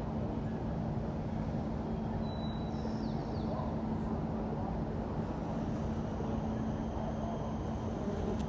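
Steady city street ambience: a continuous low rumble of traffic with a constant hum underneath, and a brief high chirp about two and a half seconds in.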